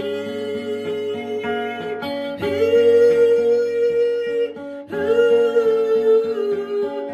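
Acoustic guitar strummed steadily, with a man's voice singing long held notes without words over it.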